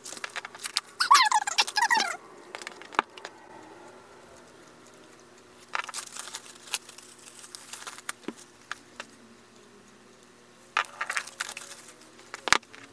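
Plastic shrink wrap on a K-pop CD album being slit with a box cutter and pulled off, with a loud crinkly, squeaky burst about a second in, followed by scattered clicks and knocks as the album is handled and set down.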